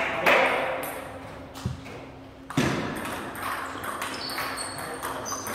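Table tennis balls clicking off paddles and the table during a rally: a series of sharp, irregularly spaced ticks.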